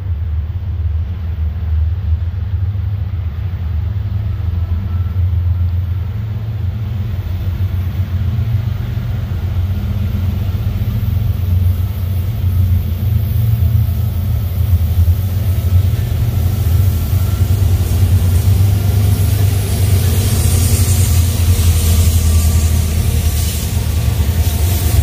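Union Pacific diesel-electric freight locomotives rumbling as an intermodal train approaches. The sound grows steadily louder, and a rising hiss of wheels and rails joins it in the last several seconds as the lead locomotives pull alongside.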